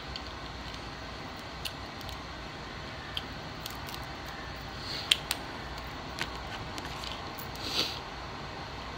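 Scattered small clicks and cracks of king crab leg shell being picked apart by hand and snipped with scissors, the sharpest click about five seconds in and a short scraping crunch near the end.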